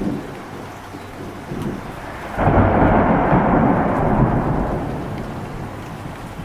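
Steady rain falling, then about two and a half seconds in a loud clap of thunder breaks and rumbles on, slowly dying away.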